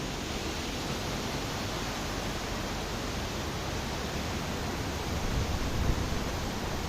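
Steady rushing outdoor noise, with wind buffeting the microphone in gusts from about five seconds in.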